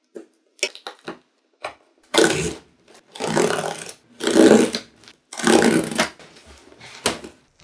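Craft knife cutting through corrugated cardboard along a metal straightedge: four scraping strokes, each half a second to a second long, after a few light taps and clicks. A sharp knock near the end.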